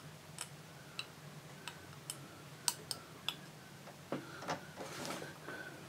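Faint, scattered small clicks and ticks of a push-on wire connector and metal parts being handled as the connector is fitted onto a transistor's pin on a metal panel.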